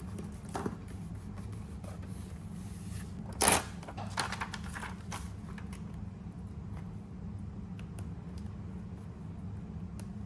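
Handling of paper and stickers at a desk: a short, loud rustle or scrape about three and a half seconds in, then lighter rustling and a few small clicks, over a steady low hum.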